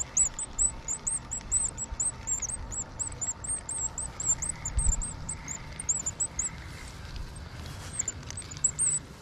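Spinning reel being cranked fast, squeaking with a rapid series of short high chirps, about four or five a second, that stop about six and a half seconds in and briefly return near the end, over low thumps of the rod being handled.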